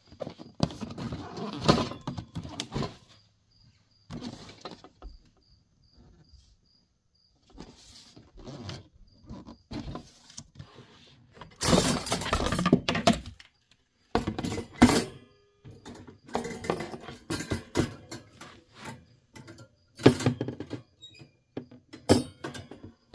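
Cardboard box and packing scraping and rustling in irregular bursts as a chrome wire grill rack is handled and pulled out, with light clinks of the wire.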